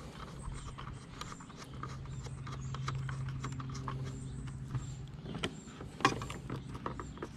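Small clicks and rattles of cable plugs being handled and pushed into the connector ports on the back of a fish finder, with a sharper click about six seconds in. A low steady hum runs underneath and stops about five seconds in.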